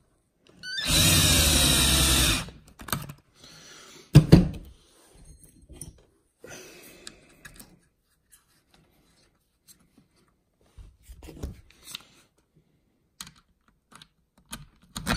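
Cordless power driver runs for about a second and a half, its motor pitch shifting as it drives a screw, then a single sharp knock and light clicks of small hardware and tools being handled. The driver starts again right at the end.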